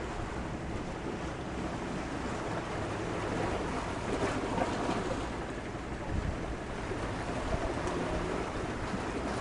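Steady rushing noise of wind and water, with a few short low swells.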